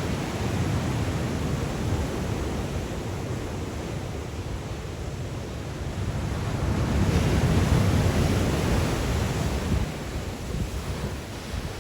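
Black Sea surf in a strong wind: waves breaking and washing with a steady rush, and wind buffeting the microphone. A bigger wave surges louder about seven seconds in, then eases off.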